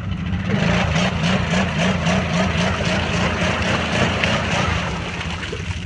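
Arctic Cat 1000's engine revving hard under load as it churns through heavy mud. It swells about half a second in with a pulsing beat and eases off near the end.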